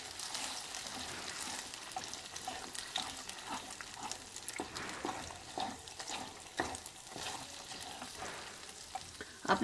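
Moong dal paste sizzling in hot ghee while a wooden spatula stirs it continuously, with scattered scrapes and light knocks of the spatula on the pan. It is the first stage of roasting the paste for halwa.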